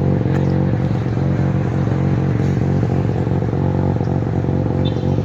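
Mazda rotary engine idling at a steady, unchanging pitch.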